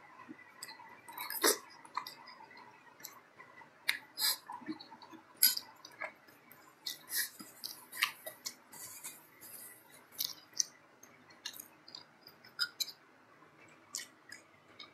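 Close-miked chewing of a mouthful of bakso meatball and tetelan beef trimmings, with wet mouth clicks and smacks at irregular intervals. Near the end a spoon clicks against the bowl.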